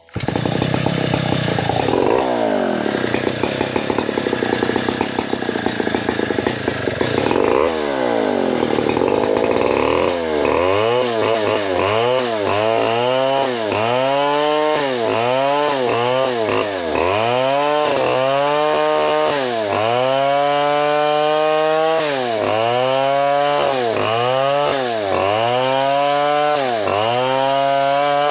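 Two-stroke chainsaw ripping a log lengthwise into boards. Its engine pitch sags and recovers in a regular rhythm, about every second and a half, as the bar is worked back and forth in the cut. The rhythm settles in after about ten seconds of more uneven revving.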